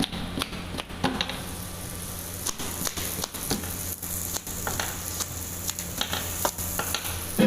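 Food sizzling as it fries on a hot pan, with scattered sharp clicks and taps through it and a steady low hum underneath.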